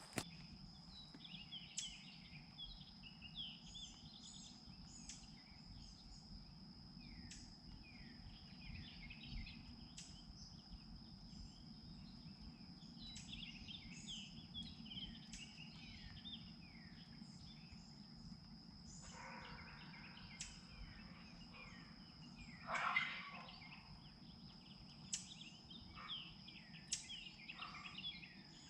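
Faint woodland ambience: small birds chirping with many short falling notes over a steady high-pitched whine, and one brief, louder rough sound about two-thirds of the way through.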